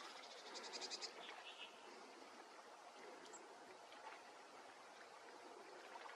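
Near silence, broken about half a second in by a brief, fast run of faint, high bird call notes.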